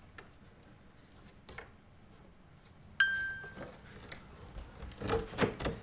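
A single short bright ding about halfway through, then a run of clicks and knocks from a plastic window sash and its handle being worked from outside, loudest near the end.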